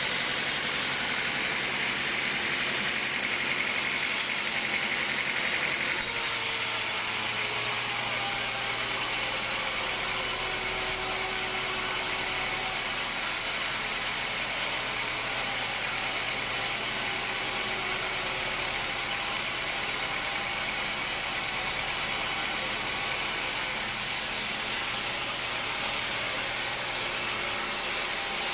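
Sawmill machinery running steadily, a continuous mechanical hum and hiss, with an abrupt change in tone about six seconds in.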